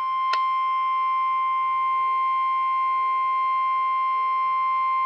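Weather-radio alert tone: one steady, unbroken pitch near 1 kHz, the 1050 Hz warning alarm tone that signals a severe weather warning broadcast is about to follow. A brief click about a third of a second in.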